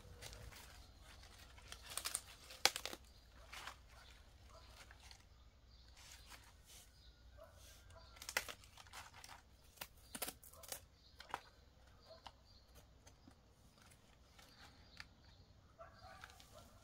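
Lettuce leaves being snapped off a freshly harvested head and trimmed with a small knife: faint crisp tearing and rustling, with a few sharper snaps about two seconds in and again later.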